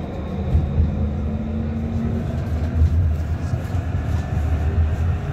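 Luas Class 3000 tram running along the line, heard from inside the passenger saloon: a steady low rumble from the running gear on the rails. A faint hum rises slightly in pitch and fades out about two seconds in.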